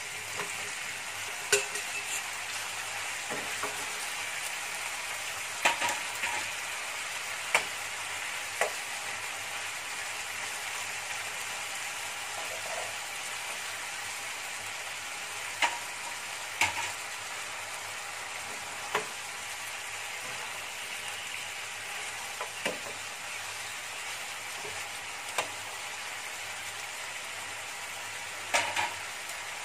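Chicken wings frying in a fish-sauce glaze in a nonstick pan, a steady sizzle, with about ten sharp clicks of utensils against the pan as the wings are turned.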